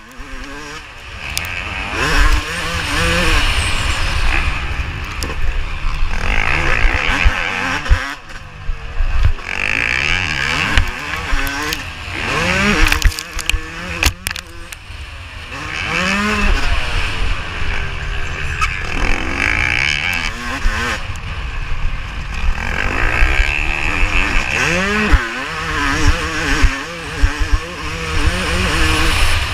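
Yamaha YZ250 two-stroke motocross engine racing, revving up in repeated rising sweeps and dropping off between them as the rider shifts and backs off, with occasional sharp knocks from the bike over bumps.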